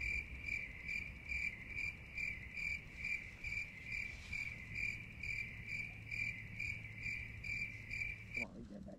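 Crickets chirping in a steady rhythm, about two chirps a second, added as a sound effect; it cuts off suddenly near the end. A faint low hum runs under the second half.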